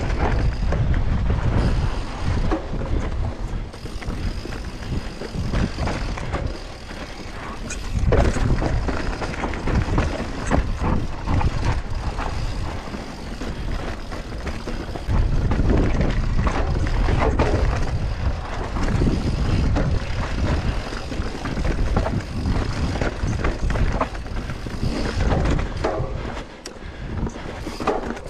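Mountain bike descending a dirt trail at speed: wind rumbling on the microphone, with the bike's tyres and frame rattling and knocking over bumps. The rumble surges and eases as the speed changes.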